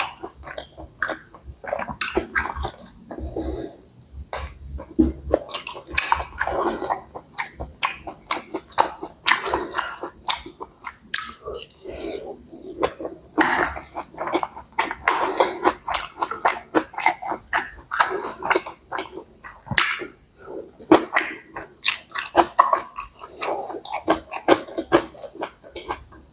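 Close-up mouth sounds of a person eating stir-fried rice noodles: wet chewing with many short, sharp clicks, several a second.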